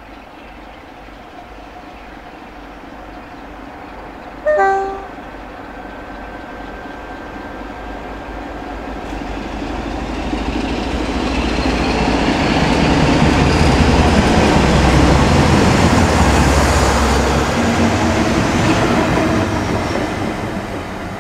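Class 47 diesel locomotive 47830 gives a short two-tone horn blast, high then low, about four and a half seconds in. Its Sulzer twin-bank 12-cylinder engine then grows loud as it passes under hard power with a Class 70 locomotive in tow, with a rising whine and wheels on the rails, and fades as it draws away.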